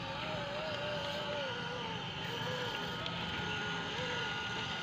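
Radio-controlled model truck's electric motor and gears running steadily, with a whine whose pitch wavers up and down with the throttle.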